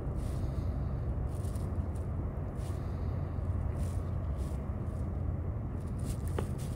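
Steady low rumble of ship engines from the towing tug and the floating crane across the river. A short rising whistle comes near the end.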